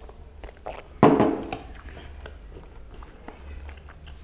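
A person eating chapati: small chewing and mouth sounds, with one sudden loud sound about a second in that fades within half a second.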